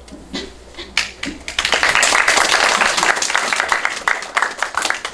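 Audience applauding: a few scattered claps at first, then the clapping swells into full, dense applause about a second and a half in.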